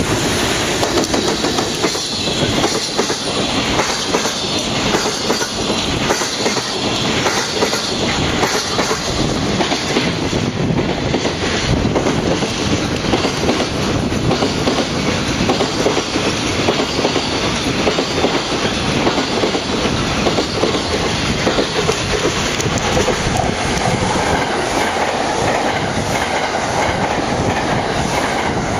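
Freight train rolling past, its wagons' wheels clattering in a steady clickety-clack over the rail joints.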